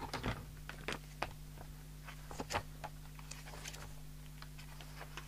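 Paper pages of an instruction booklet being handled and turned: a scatter of short rustles and flicks, over a steady low hum.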